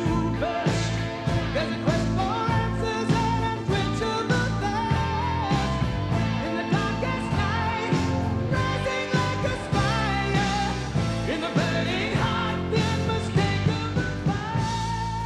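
A rock song with singing over a steady drum beat.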